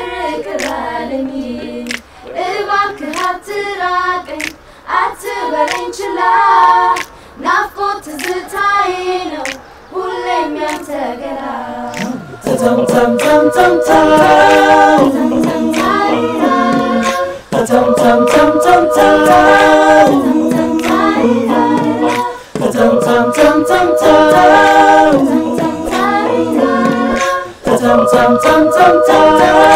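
Unaccompanied singing with steady hand clapping: one voice leads at first, and about twelve seconds in a group of singers comes in, singing together in harmony and louder.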